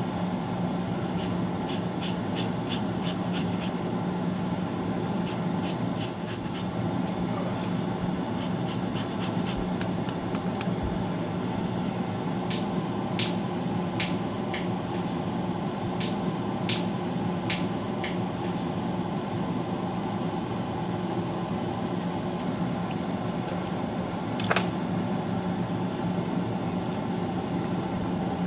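A steady low hum throughout. In the first ten seconds there are two runs of fine, rapid scraping ticks as a lemon is grated for zest over a dish of beets. After that come a few sharper taps and a single knock about 24 seconds in.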